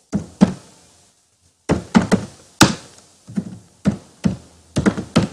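Typing on a computer keyboard: about a dozen irregular keystrokes.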